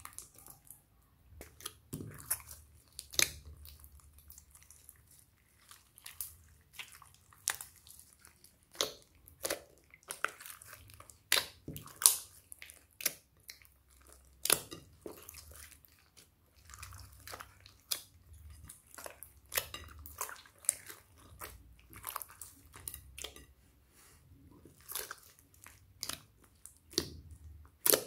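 Hands kneading and stretching a large mass of slime mixed with foam beads in a glass bowl: irregular wet, sticky squelches and sharp pops, several a second at times, some much louder than others.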